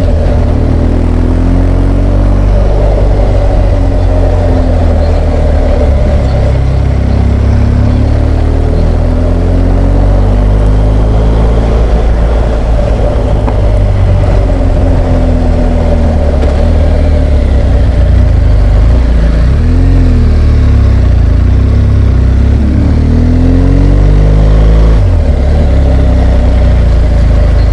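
BMW R1200GS Adventure's boxer-twin engine under way, its pitch rising and falling several times with throttle and gear changes, over a heavy low rumble, heard from a helmet-mounted camera.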